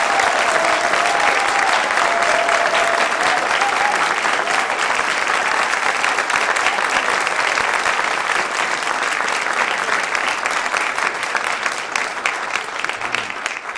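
Audience applauding: dense, steady clapping from a roomful of people that thins and dies away near the end.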